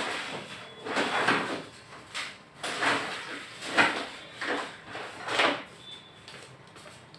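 A run of short scraping and rustling handling noises, about eight in five seconds, uneven in spacing, dying down near the end.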